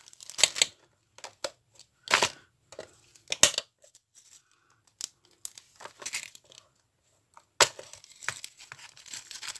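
Plastic rustling and clicking as a small plastic bag of gold jump rings and a plastic compartment storage box are handled on a craft mat, in several short separate bursts with quiet gaps between.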